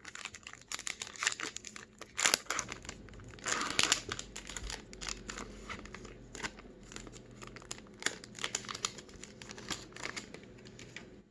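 A foil trading-card pack wrapper crinkling and crackling as it is torn open and peeled apart by hand, with a longer, denser rip about three and a half seconds in.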